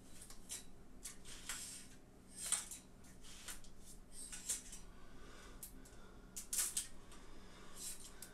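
Irregular short clinks and scrapes of curtain rings and hooks on a curtain rod, handled at the rod while a SwitchBot Curtain is fitted. The sound is faint.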